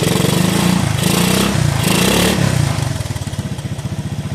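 Honda ATC three-wheeler's single-cylinder engine running after its clogged carburetor jets were cleaned, blipped louder three times over the first two seconds or so, then settling to an even idle.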